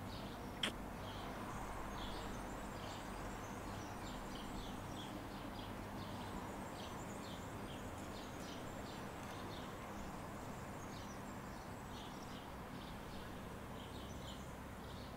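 Quiet outdoor ambience: a steady low background hiss with small birds chirping in short, scattered calls throughout, and a single sharp click about half a second in.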